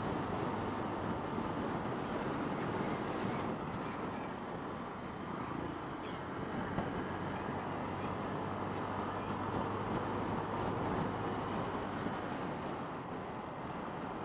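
Motorcycle riding steadily along a road: wind rushing over the microphone over the engine and tyre noise.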